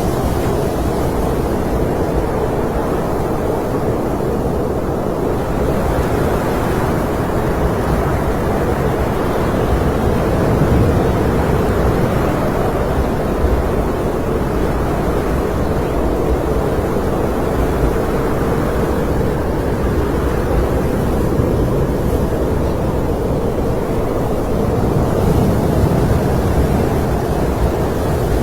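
Snowstorm wind blowing: a steady low rushing noise that slowly swells and eases over several seconds.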